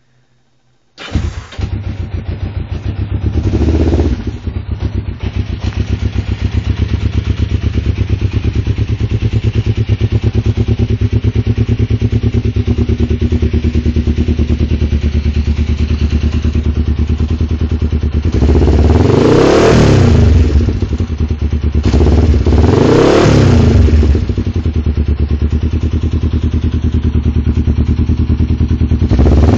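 1989 Kawasaki EX500's parallel-twin engine starting about a second in and running at idle through Delkevic mufflers with the baffles removed. It is blipped once shortly after starting, then revved up and back down twice past the middle and once more at the end.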